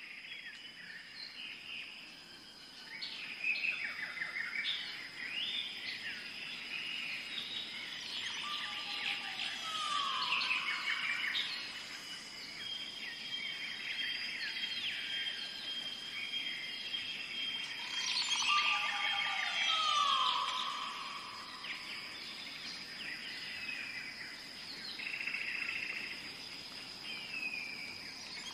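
Rainforest ambience: many birds calling, chirping and trilling at once over a steady high insect drone. A lower call that slides down in pitch comes round about three times.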